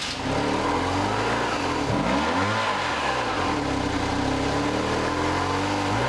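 BMW R1100RSL's boxer twin engine running just after it has been started, for the first time in over a year. The engine speed dips and picks up again about two seconds in.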